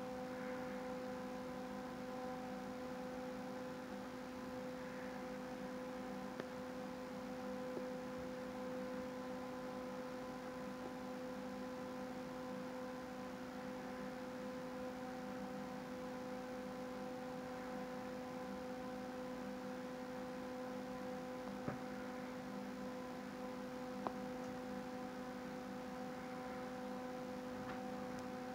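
Steady electrical-sounding hum, with a few faint ticks.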